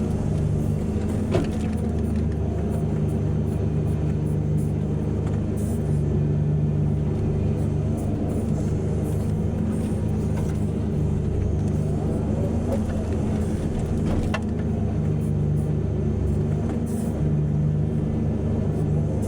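Heavy diesel engines of mining excavators and dump trucks running steadily, the engine note swelling and easing several times as the machines work. Two sharp knocks stand out, one about a second and a half in and one near fourteen seconds in.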